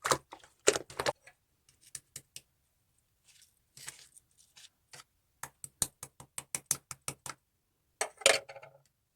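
Slime being pressed and squeezed by hand, giving irregular sharp clicks and pops. A quick run of clicks comes in the second half, and a louder crackly burst near the end.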